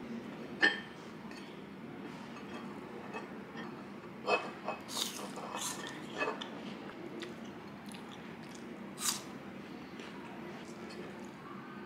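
Apple slices, a small ceramic dip bowl and a plate being handled at a table: scattered light taps, clinks and crisp clicks, with a busier run of them in the middle, over a low steady hum.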